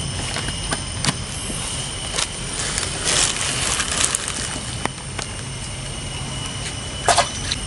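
Steady outdoor background of a low rumble and a thin high hiss with a faint steady high whine, broken by scattered small clicks. A short louder rush of hiss comes about three seconds in, and a sharp double knock comes near the end.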